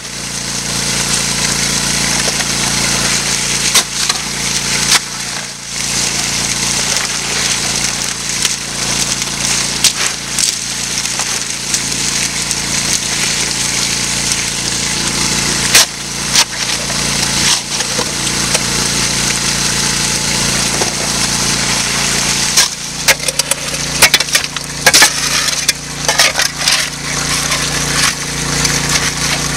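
Highbanker at work: a steady rush of water with a motor hum beneath, and gravel and rocks clattering in sharp knocks that come thickest in a burst late on.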